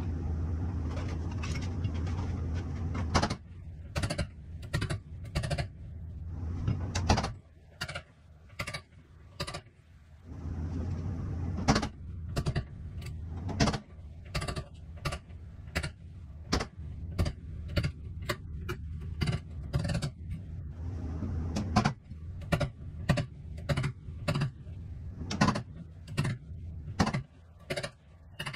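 Sheet-metal dent repair on a Toyota Tundra's dented steel door: irregular sharp metal clicks and knocks, about one or two a second. A low steady hum comes and goes, running for a few seconds near the start, about ten seconds in and around twenty seconds in.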